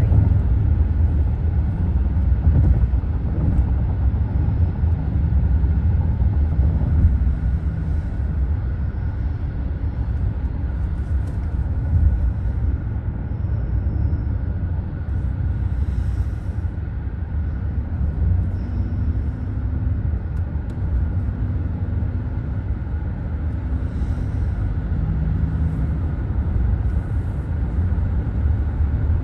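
Steady low road rumble inside a moving car's cabin: tyre and engine noise at cruising speed.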